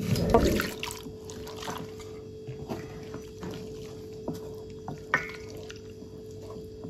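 Liquid poured into a stainless steel mixing bowl of thick soap paste in the first second, then a wooden spatula stirring through the wet paste, with scattered squelches and taps against the bowl. A steady low hum runs underneath.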